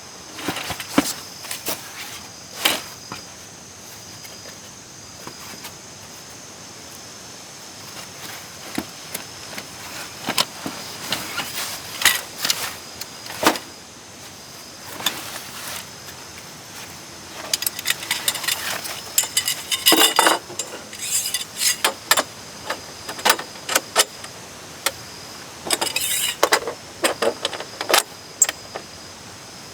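Light metal clinking and clattering of small gear being handled, in irregular bunches of quick clicks that grow busier in the second half, over a faint steady high tone.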